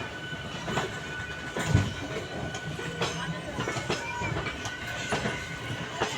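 A train moving along the platform track, its wheels clacking and knocking over rail joints in an uneven run of sharp strokes, with one heavier knock about two seconds in.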